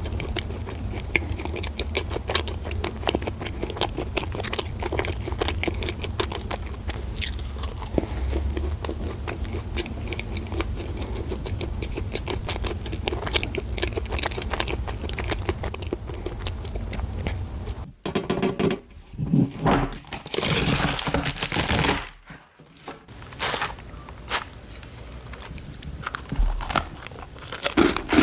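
Close-miked biting and chewing of a Market O dacquoise, a run of fine crunchy clicks over a steady low hum. About two-thirds of the way in the sound cuts to a few louder bursts of rustling, as a packet of Danish butter cookies is handled and opened.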